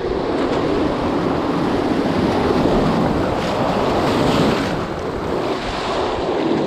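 Ocean surf surging and washing over a rock ledge, a steady rushing wash that swells about four seconds in, with wind buffeting the microphone.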